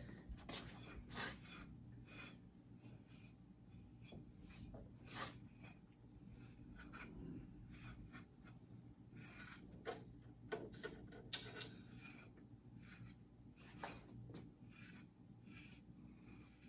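Faint, irregular scratchy strokes of a grooming brush being pulled through a dog's coat.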